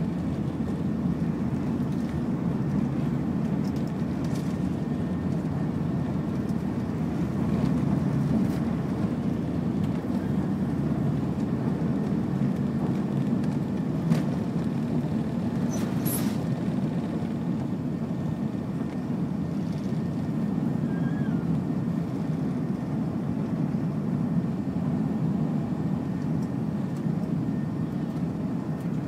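Cabin noise of an Airbus A380 taking off, heard from a window seat: its four engines at takeoff thrust as a steady low rumble while the jet leaves the runway and climbs. One brief sharp sound about halfway through.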